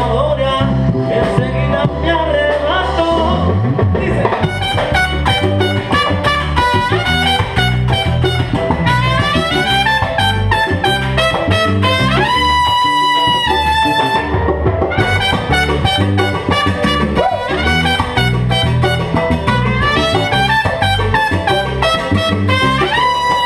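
Live salsa band playing an instrumental passage with no vocals: trumpet lines over congas, drum kit, electric bass and keyboard on a steady dance beat. About halfway through, a high trumpet note is held for a couple of seconds.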